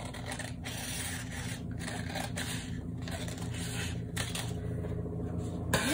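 Scissors cutting through two layers of folded paper: a run of snipping, crunching cuts broken by short pauses about once a second as the blades reopen. A louder rustle of the paper being handled near the end.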